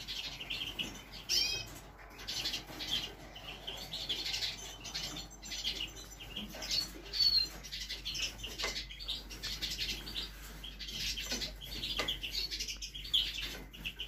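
Small caged finches calling with many short, high chirps, mixed with brief fluttering of wings.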